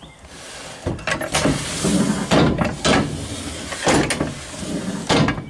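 Fifth-wheel hitch worked back and forth on its steel rails, freshly sprayed with Liquid Wrench: a series of metal scrapes and clunks, about eight knocks spread through the stretch.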